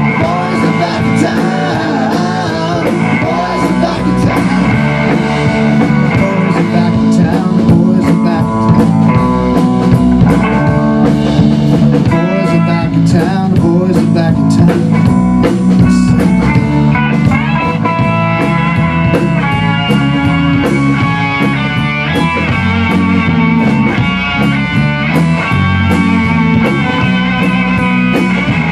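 Rock band playing live: electric guitar over bass guitar and a Tama drum kit.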